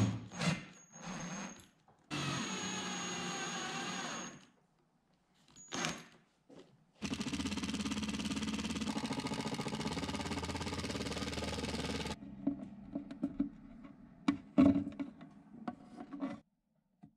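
Cordless drill driving screws into wood in a few short runs, then a Ryobi cordless impact driver hammering a screw in for about five seconds with a fast, even rattle. A few knocks and handling clatter follow near the end.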